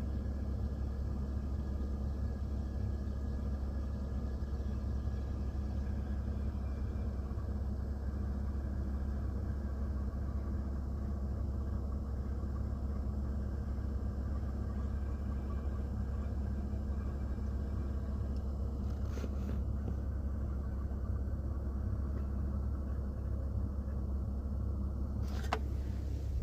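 Steady low rumble inside a truck's cab, with faint thin tones above it that the owner takes for voices being broadcast into the truck. Two short clicks come near the end.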